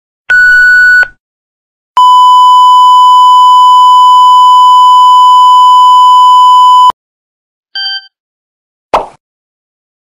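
A string of separate sound-effect beeps: a short beep, then a long steady censor bleep lasting about five seconds, then a very short blip. Just before the end comes a single sharp click.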